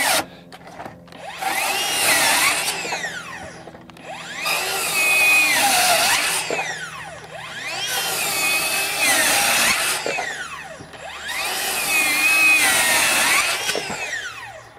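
Ryobi One+ HP 18V brushless 7-1/4-inch circular saw (PBLCS300) making crosscuts in a pressure-treated 2x8 in short runs: about four times it spins up, cuts for a couple of seconds with its pitch sagging mid-cut, and winds down.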